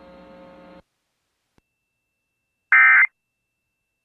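Emergency Alert System end-of-message data burst: one short, loud, buzzy squawk of digital modem tones about 2.7 seconds in, the first of the three bursts that close an EAS alert. Before it, a faint steady hum from the broadcast audio cuts off just under a second in, leaving silence.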